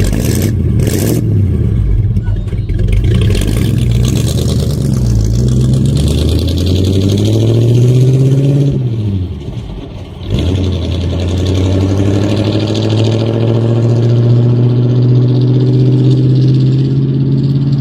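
Vehicle engine pulling and accelerating: its pitch climbs, drops sharply with a brief lull about ten seconds in, as at a gear change, then climbs steadily again.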